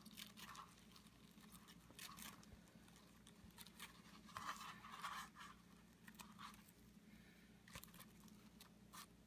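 Faint, scattered snips of steel scissors cutting through bubble-wrap plastic, with the thin film crinkling between cuts as the curved bubble layer is trimmed off to leave a flat sheet.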